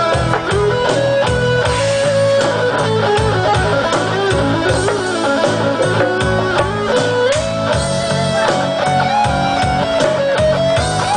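Live band playing an instrumental passage: electric guitar carrying a sustained melody line over a steady drum beat.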